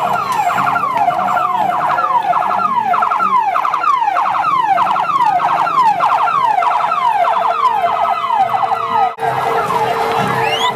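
Police vehicle siren sounding a fast, repeated falling wail, several sweeps a second. It cuts off about nine seconds in.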